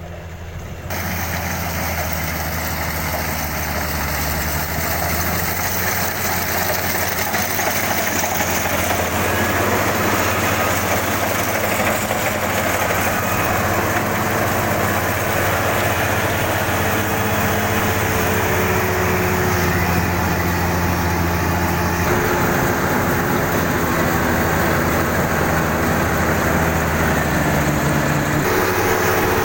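Kubota DC-35 combine harvester running while harvesting rice: a steady diesel engine drone mixed with the clatter of its threshing machinery. It gets louder about a second in and keeps building over the next several seconds, then holds.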